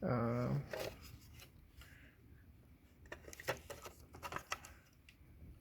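Faint rubbing and a few light clicks of plastic parts being handled: the mirror's electrical plug being worked toward its wiring connector.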